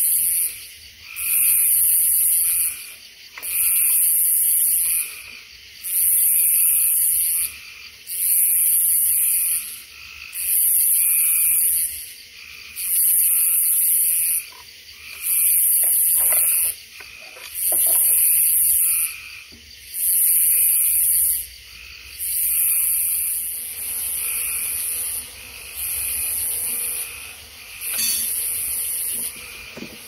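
A chorus of night insects calling in a steady rhythm: a high, hissing buzz about a second long, repeating roughly every second and a half. A few brief rustles and knocks are heard around the middle.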